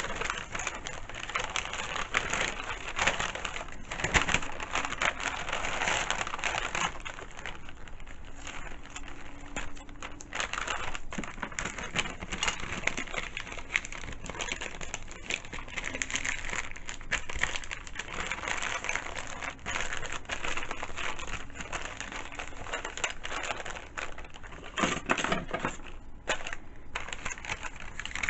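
Wrapping paper rustling and crinkling as it is handled and folded, with frequent small taps and clicks.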